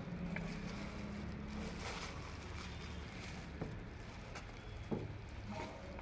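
A steady low hum with a few light clicks and taps, from a bowl and batter-coated potato slices being handled over a metal tava.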